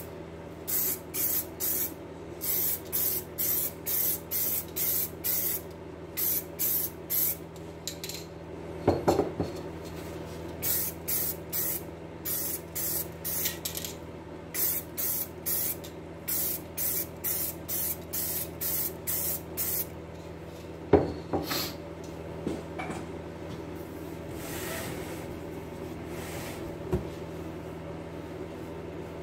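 Aerosol spray can spraying paint onto a wheel rim in short quick bursts, about two a second, for the first twenty seconds or so and only now and then after that; the bursts are kept short so the coat stays thin and the paint doesn't run. A brief clatter about nine seconds in and a sharp knock about 21 seconds in.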